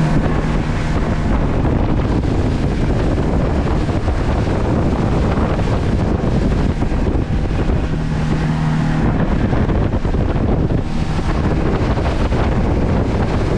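Heavy wind buffeting the microphone over a center-console boat running at speed, its hull hissing and slapping through the water. A steady low engine drone stands out briefly at the start and again about eight seconds in.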